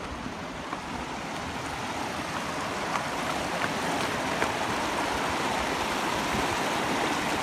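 Shallow mountain stream rushing over rocks, a steady watery hiss that grows louder, with a few light clicks around the middle.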